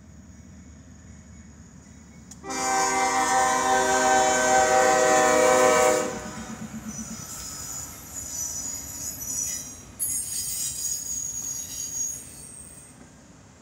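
CSX freight train at a grade crossing: the lead locomotive's air horn sounds one long chord-like blast of about three and a half seconds, starting a couple of seconds in. The locomotives and autorack cars then roll past with a running wheel rumble and high-pitched wheel squeal, fading near the end.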